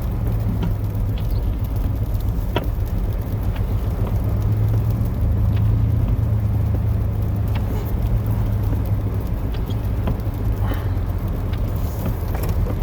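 Chevrolet 8.1-litre Vortec big-block V8 of a plow truck running steadily, a low drone with a few faint clicks. The engine has a leaking exhaust manifold.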